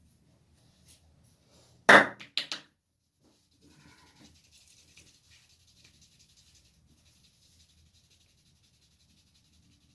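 Head massage: a quick run of four sharp smacks about two seconds in, the first the loudest, as hands strike the head, then faint rubbing of hands over hair and scalp.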